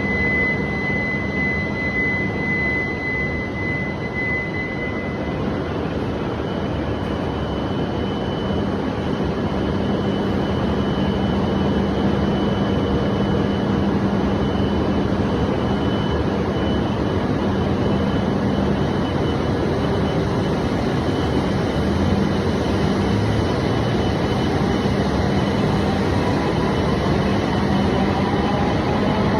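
W7-series Shinkansen electric train running with a steady rumble and hum, its high whistling tones fading out about five seconds in; near the end a set of tones rises steadily in pitch as the traction motors spin up.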